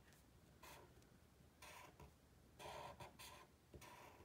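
Felt-tip marker drawing short, quick strokes on paper, a faint scratch with each line, about six strokes in all.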